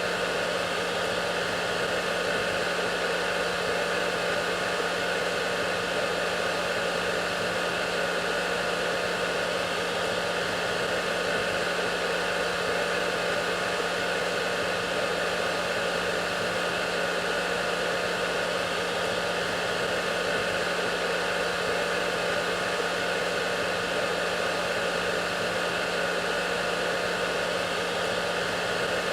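Hair dryer running steadily: a constant, even rush of air with a steady hum underneath, unchanging throughout.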